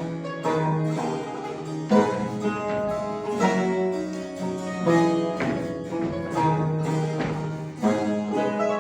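Mandolin ensemble playing a classical-style instrumental piece, with plucked string notes layered over a lower bass line.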